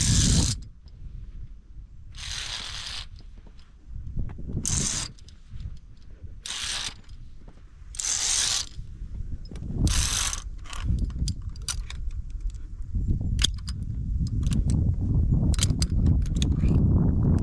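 Metal via ferrata carabiners scraping along the steel safety cable in repeated half-second-to-one-second slides about every two seconds, then a run of sharp metallic clicks near the end, over a low rumble of handling or wind.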